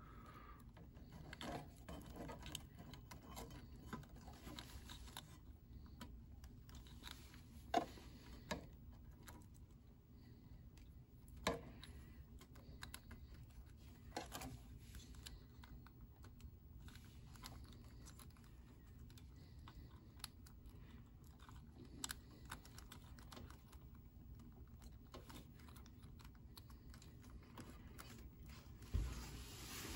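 Faint clicks and rustling of wires as small plastic stepper-motor cable plugs are handled and pushed into the sockets of a 3D printer mainboard, with a few sharper clicks scattered through and a soft thump near the end.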